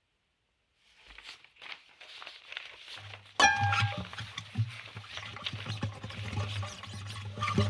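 Experimental music for guitar and everyday objects: crackling, rustling object noise builds after a near-silent start, then about three and a half seconds in a sharp attack brings in a sustained low note under the continuing crackle.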